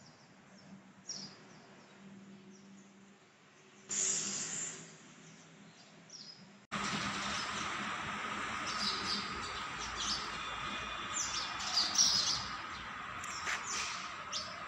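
Birds chirping outdoors over street background noise. About two-thirds of the way through, the sound cuts abruptly to a louder background with more frequent chirps and a steady high tone.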